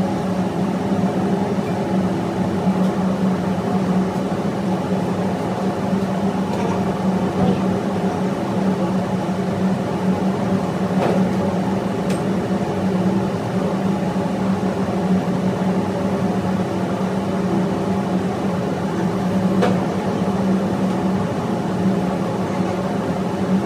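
Steady drone of ship's engine-room machinery with a strong low hum, loud and unchanging. A few faint clicks of hand tools sound around the middle and again later.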